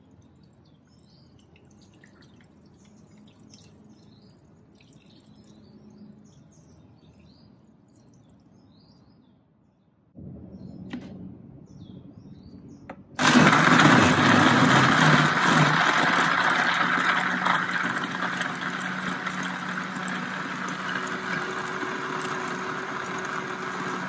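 Countertop blender switched on about halfway in, running loud and steady as it grinds boiled fish bones and water into a slurry for laksa stock; the noise eases gradually as it runs.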